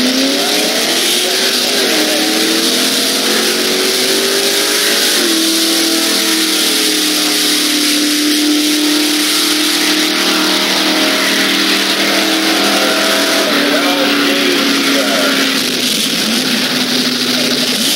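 A drag-racing car's engine at full throttle on a pass: its note climbs, drops at a gear change about two seconds in and again about five seconds in, then holds a long steady pull with one more shift near the end of the run.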